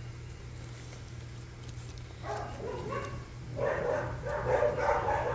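Several dogs barking in the background, both household dogs and neighbours' dogs answering each other. It starts about two seconds in and carries on as a run of repeated barks.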